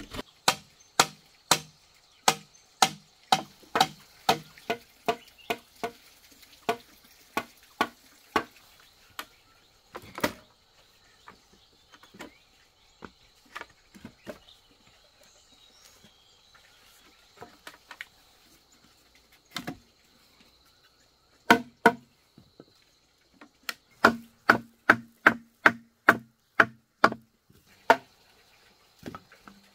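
Repeated sharp strikes of a tool on bamboo, about two a second for the first eight seconds. A few scattered strikes follow, then a quicker run of strikes near the end.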